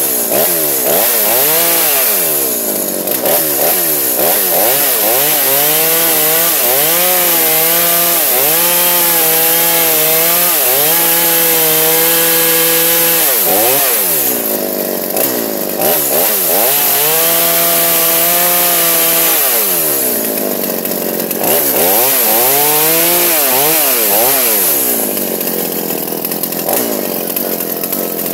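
Two-stroke chainsaw engine running and being revved: the pitch swings up and down rapidly, and twice it is held steady at high speed for several seconds.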